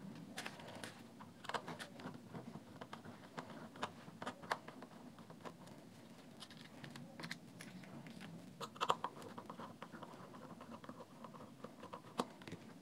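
Faint, scattered clicks and scrapes of a screwdriver tip and fingers prying at the plastic clips of a JBL Charge 3 speaker's battery-section cover, with a louder cluster of clicks about nine seconds in.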